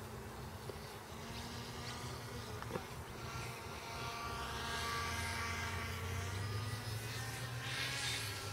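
Motor and propeller of an RC powered paraglider buzzing in flight, its pitch swelling and rising then falling back around the middle. A single faint click about three seconds in and a brief rush of noise near the end.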